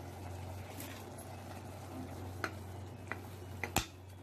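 Metal spoon stirring thick curry masala in a pressure cooker pot, with a few sharp clinks of the spoon against the pot in the second half, the last the loudest. A steady low hum runs underneath.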